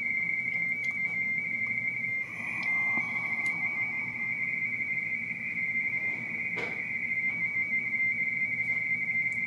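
Radio teletype (RTTY) signal from an Icom IC-7300 transceiver's speaker: a steady, high, whistle-like data tone that shifts slightly in pitch as it keys. It carries a contest exchange that the radio is decoding. A single short click comes about six and a half seconds in.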